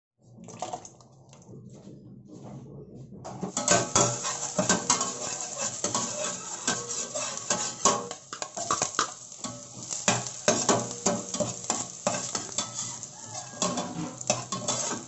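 Spatula scraping and clinking against a stainless steel pot while chopped onions and ginger sizzle in oil. Quieter for the first three seconds, then a busy run of clinks and scrapes.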